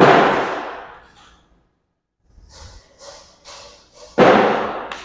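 Two cornhole bags landing on a wooden cornhole board, each a sharp thud that rings and fades over about a second, the second about four seconds after the first. A few fainter knocks come between them.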